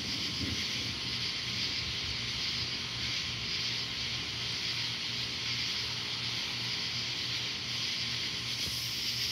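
Steady outdoor night ambience: an even, high-pitched hiss with no distinct events.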